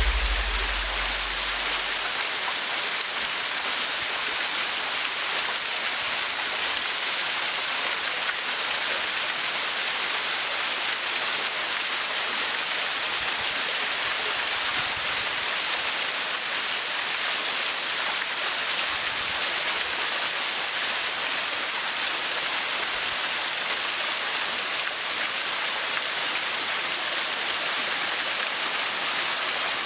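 Wakaba Falls waterfall: a steady, even rush of falling water.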